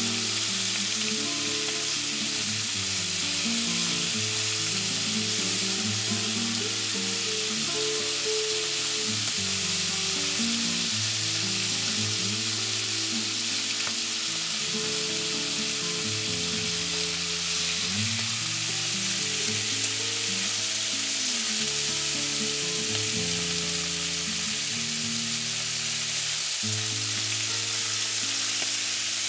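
Ground beef, onions and grease sizzling steadily in a frying pan while flour browns in the fat. Soft background music with low, changing held notes plays underneath.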